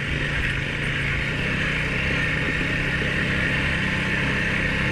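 Honda ATV engine running steadily as the quad rides up a rocky slope, its pitch rising slightly about a second and a half in.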